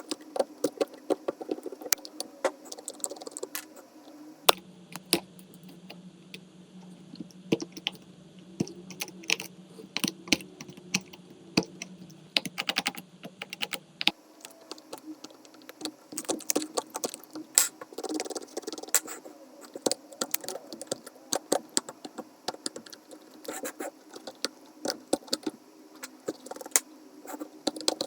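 Small metal repair tools clicking, tapping and scraping against an iPhone's housing and glass in quick, irregular strokes. A low steady hum runs under the clicks through the middle stretch and then stops.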